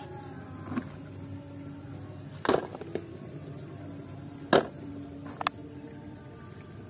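Mud-covered toy vehicles being picked up and set down, giving a few short, sharp knocks spaced a second or two apart over a low steady background.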